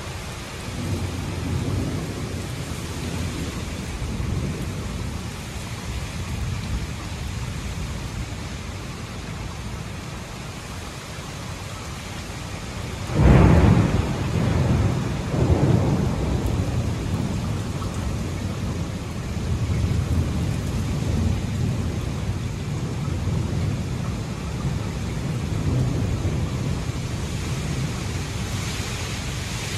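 Thunderstorm: steady heavy rain with low rumbling thunder, broken about halfway through by a sudden loud thunderclap, a second weaker crack a couple of seconds later, and rolling rumble after.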